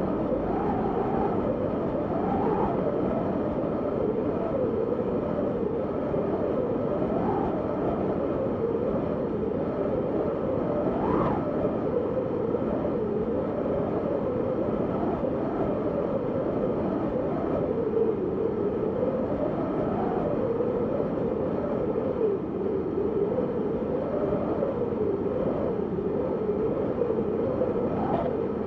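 Synthesized wind noise: a steady rushing hiss with a hollow note that drifts slowly up and down, like gusts, rising briefly higher about eleven seconds in.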